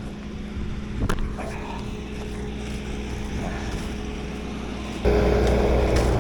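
Skid steer engine running steadily, with a knock about a second in; about five seconds in the engine note jumps sharply louder and stays up.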